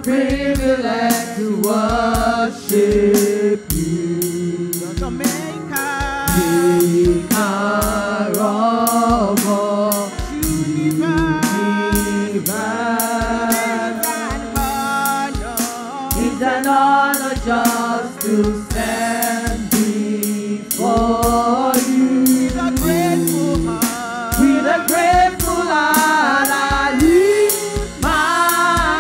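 Women's gospel choir singing together into handheld microphones, over a band with a steady drum beat.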